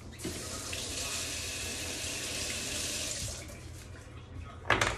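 Kitchen faucet running into a stainless-steel sink over gloved hands for about three seconds, then shut off. A single sharp knock comes near the end.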